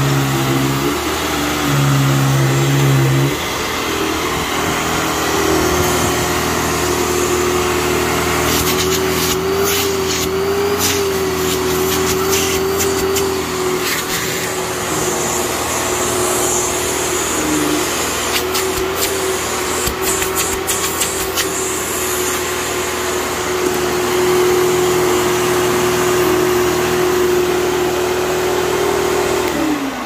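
A 1995 Dirt Devil MVP 12-amp upright vacuum cleaner running with a steady motor hum, with a few seconds of sharp crackling clicks partway through. Near the end the motor winds down, its pitch falling.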